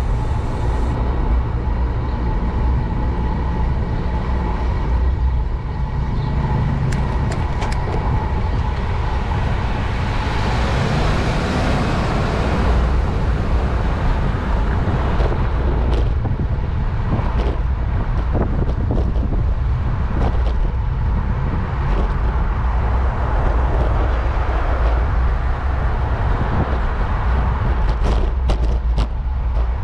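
City street traffic heard from a moving bicycle: a steady low rumble of road noise with a vehicle passing close about ten to thirteen seconds in, and scattered clicks and knocks in the second half.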